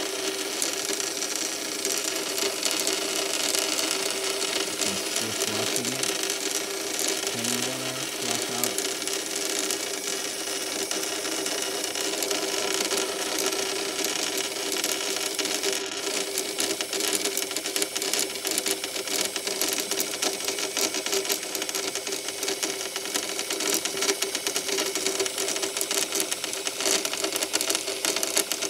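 Reefbot automated aquarium water tester's internal motor running steadily during an alkalinity test: a constant mechanical hum with a fine, rapid ticking.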